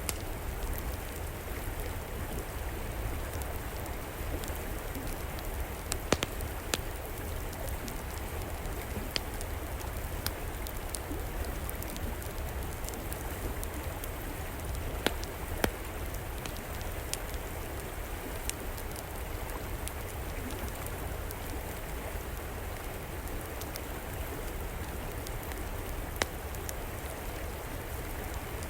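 A river flowing steadily under a wood fire crackling, with a few sharp pops scattered through, the loudest about six seconds in and twice about fifteen seconds in.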